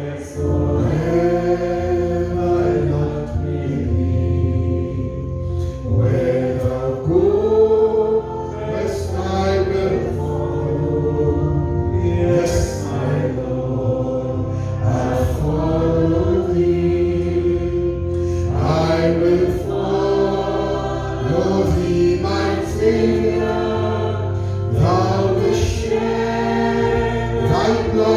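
Congregation singing a gospel hymn together in chorus, with an instrument carrying a bass line underneath.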